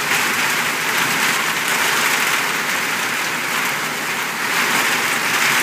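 Heavy monsoon downpour: a loud, steady hiss of rain pelting the ground, hard enough to sound like hail.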